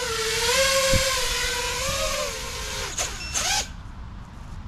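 Six-inch FPV quadcopter's brushless motors and propellers whining in a hover, the pitch wavering up and down as the throttle is worked. About three seconds in, the pitch drops and the motors spin down and stop as it sets down, with a couple of short knocks.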